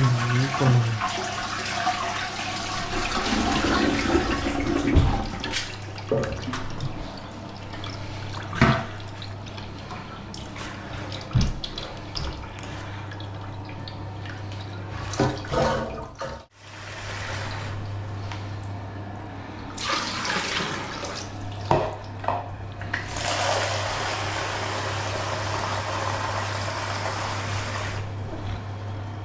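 Toilet cistern flushing through a newly fitted siphon: water rushes into the bowl at the start and eases off. The cistern then refills, with water running in, a low steady hum and a few knocks and clicks.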